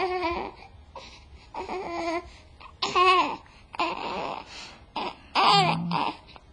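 Newborn baby fussing: about four short, wavering cries with pauses between them, the loudest a little past the middle and near the end. He is fussing for his pacifier.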